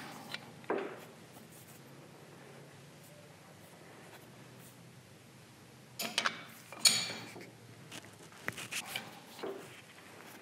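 Chuck key working the jaws of a four-jaw lathe chuck while a gear is centred: a couple of sharp metallic clicks at the start, a quiet stretch, then a cluster of metal clicks and scrapes from about six seconds in.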